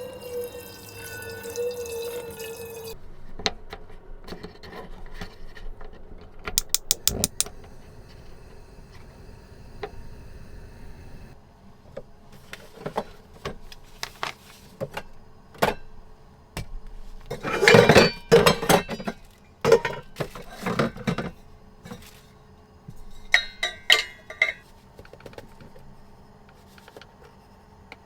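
Scattered clinks, knocks and clatter of things being handled in a small room, like dishes and cookware being moved. The clatter is loudest in a cluster about eighteen to twenty-one seconds in.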